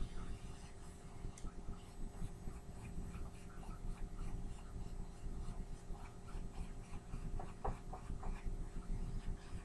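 Heat gun running steadily with a constant motor-and-fan hum, with faint scattered ticks and crackles, a small cluster of them about seven and a half seconds in.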